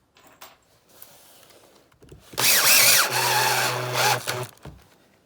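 Power drill driving a screw into recycled poly plastic, snugging an arm tight to the rack's backer. It runs for about two seconds, starting about two seconds in and stopping shortly before the end, after a few light handling clicks.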